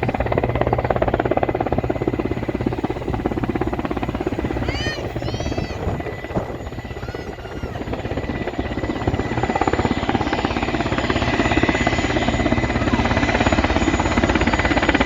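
Helicopter coming in to land: the rotor beats fast and steady over a steady turbine whine. It eases off for a few seconds mid-way, then grows louder again as it comes closer.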